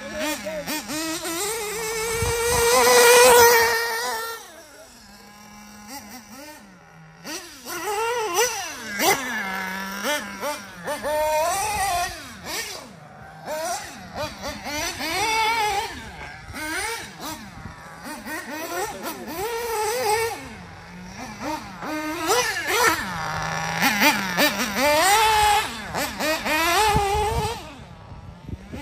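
Mugen MBX7R 1/8 off-road RC buggy's Picco P3R nitro engine revving up and down over and over as it laps the track, with quick throttle blips between runs. It is loudest and held at high revs for about two seconds near the start.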